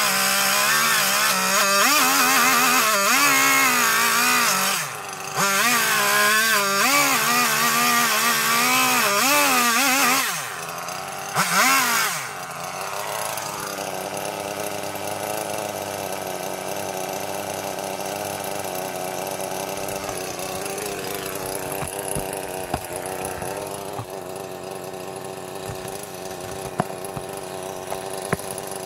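Chainsaw cutting into a log, its engine pitch wavering as it bites, with a short break about five seconds in. About ten seconds in it drops off, gives one short rev, then settles to a steady, quieter idle with a few light ticks.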